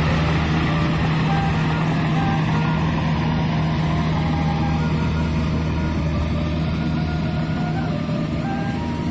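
Kubota DC-70 combine harvester running steadily: a constant low diesel engine drone under a dense mechanical rush, with short high tones scattered through it.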